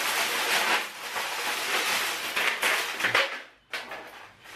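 Thin plastic shopping bag rustling and crinkling as it is handled and rummaged through, loud and continuous, easing off briefly about three and a half seconds in and then going on more quietly.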